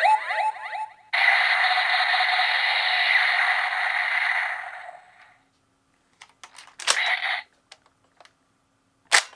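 Electronic sound effects from a toy gun's small speaker: a loud, hissing effect that fades out about five seconds in, then a few plastic clicks of the toy being worked, a short burst of sound, and a sharp click near the end.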